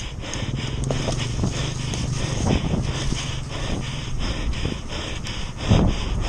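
Mountain bike riding fast downhill over a wet, rutted dirt and grass trail: wind and tyre noise, and the rider breathing hard. About two-thirds of the way through, heavier knocks come in as the bike rattles over rougher ground.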